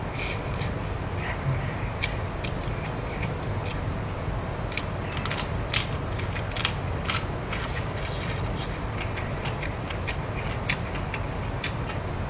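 A mouth chewing stir-fried chicken sundae close to the microphone: many short wet clicks and smacks, thickest in the middle stretch, over a steady low hum.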